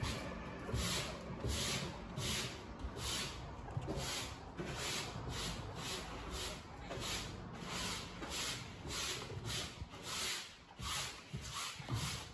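Small hand brush sweeping across a fleece cage liner in quick, even scratchy strokes, about two a second, stopping just before the end.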